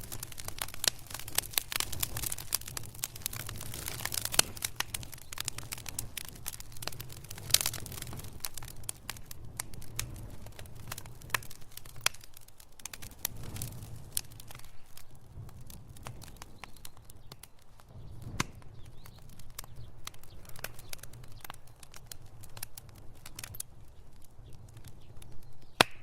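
Wood fire crackling: dense, irregular pops and snaps over a low rumble of burning, thinning out to sparser pops about a third of the way in.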